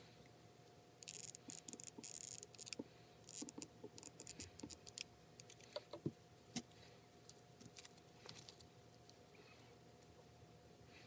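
Gloved hands handling small plastic parts: scattered light clicks, taps and scratchy rustles, busiest about a second or two in, over a faint steady hum.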